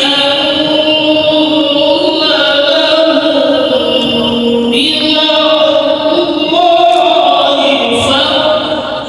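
Amplified Islamic devotional chanting: long, drawn-out melodic phrases with slow glides in pitch, moving to a new held phrase about two seconds in, near the middle and again near the end.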